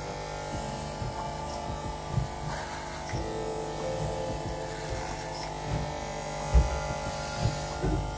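Corded electric hair clippers with a guard buzzing steadily as they cut through thick coily hair, with a few dull knocks from handling, the loudest about six and a half seconds in.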